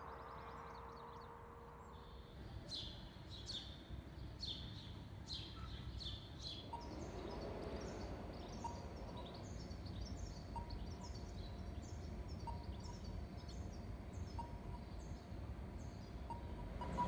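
Birds calling in an empty city street: a run of sharp falling chirps, then quicker short chirps about twice a second, over a low steady hum. A short beep repeats about every two seconds through the second half.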